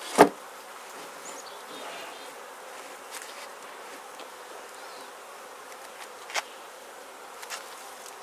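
Many honeybees buzzing in a steady hum around an opened Langstroth hive; the colony is agitated and releasing alarm pheromone. A few sharp knocks cut through it, the loudest just after the start and another about six seconds in.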